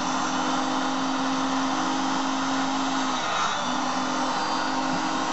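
Auto lens groover's motor running with a steady whir while the lens is held against the spinning grooving wheel to cut a light test mark for checking where the groove sits on the edge. The hum's steady tone drops out briefly a little past three seconds in, then comes back.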